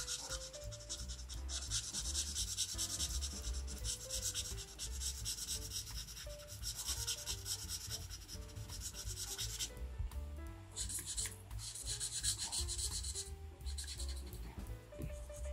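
Felt-tip marker scratching quickly back and forth across paper as stripes are coloured in, in long runs of strokes with a couple of short pauses in the second half.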